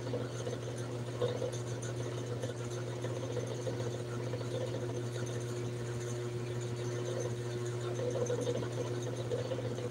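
A steady low hum of a small motor, with a faint higher tone over it.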